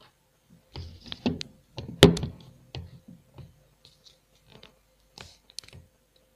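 Cardboard retail box of a portable hard drive being handled and set down on a desk: a cluster of knocks with one loud thunk about two seconds in, then a few light taps.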